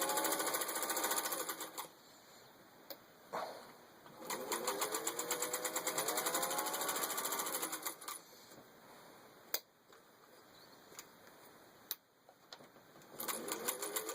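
Vintage Singer 201-2 sewing machine's electric motor sewing through six layers of denim in three runs, each speeding up from slow to fast with a rapid even stitching rhythm. A few single clicks fall in the pauses between runs.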